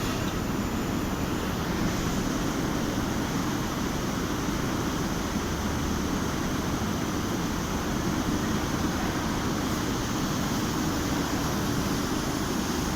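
Large fabric spreader machine running in a factory hall: a steady, even mechanical rumble with a hiss above it, and no separate knocks or pitch changes.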